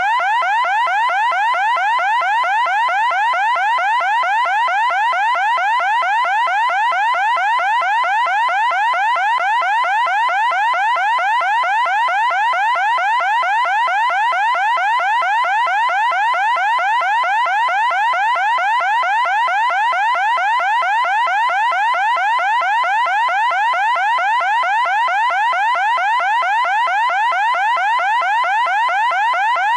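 Loud electronic siren: a harsh tone near 1 kHz sweeping rapidly upward over and over, several times a second, without a break.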